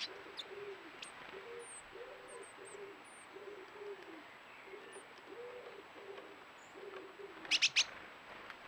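A pigeon cooing over and over in low, repeated phrases, with faint thin, high chirps of small birds. Near the end come three sharp ticks in quick succession, the loudest sounds.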